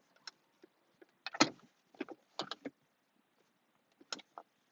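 A handful of short knocks and clicks from hands handling hard objects, the loudest about a second and a half in.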